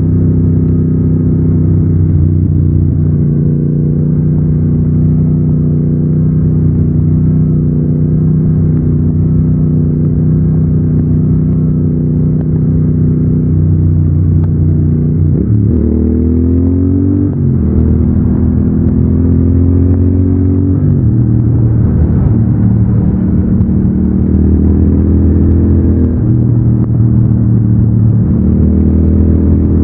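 Triumph Thruxton 1200 parallel-twin engine with its stock exhaust, heard while riding. The engine runs at a steady pitch for the first half. From about halfway the revs drop and climb sharply, and the pitch changes again several times near the end as the rider changes gears and speed.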